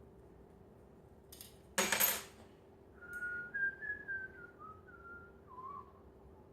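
Metal parts clank together once, sharply, with a brief ringing, about two seconds in; then a man whistles a short, wandering tune for about three seconds.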